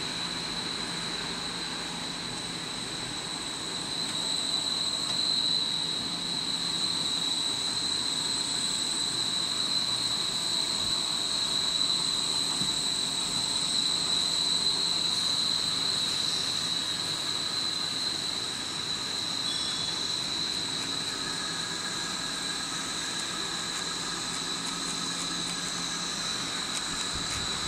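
Plastic corrugated-hose extrusion line running: a steady machine drone with a constant high-pitched whine, louder for a stretch in the middle.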